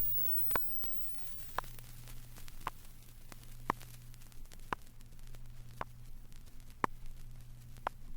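Vinyl record surface noise: faint hiss and a steady low hum, with a sharp click about once a second. These are the gaps where a frequency-sweep test tone has risen past the limit of hearing.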